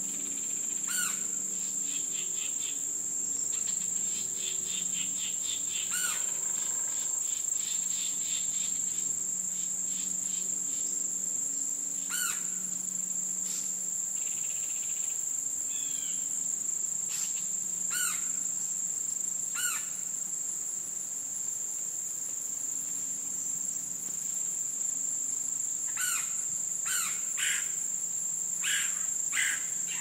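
Steady, high-pitched insect drone, with short bird chirps and calls scattered through it and a run of quick repeated chirping notes in the first third. A faint low hum sits underneath.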